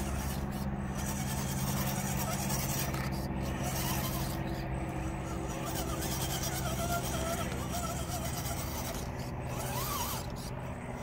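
Axial SCX10 RC crawler's small electric motor and gearing running with a steady hum as the truck crawls, with its tyres rubbing and scraping on the logs. The hum stops about ten seconds in.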